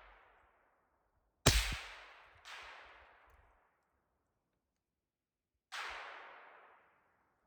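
Suppressed AR-15 rounds heard from beside the target: a sharp crack with a low thud of impact about a second and a half in, a fainter crack a second later, and another sharp crack near six seconds, each trailing off in a long echo.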